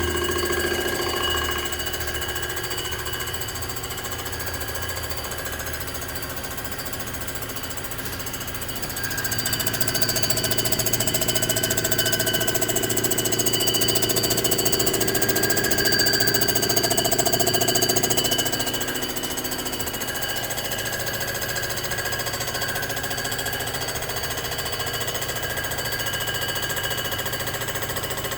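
Cylinder head surfacing machine taking a first cut across a badly warped cast-iron 427 Chevy big-block cylinder head. The steady machine sound grows louder from about nine seconds in and drops back a little before twenty seconds.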